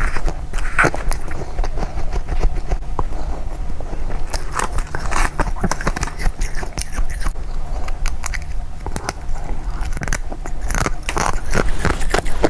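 Close-up biting and crunching of fluffy freezer frost, one crisp crunch after another in quick succession.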